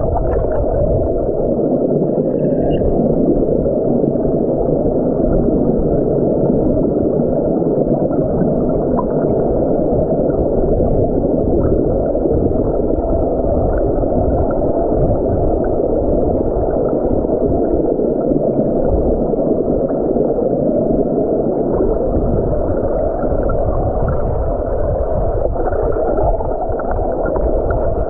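Muffled, steady rushing and gurgling of river water heard with the camera submerged, with little high-end sound.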